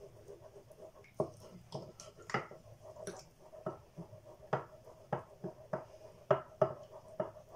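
Yeast being stirred into a small ceramic bowl of lukewarm milk, water and melted butter, making irregular light clicks and taps against the bowl, about one or two a second.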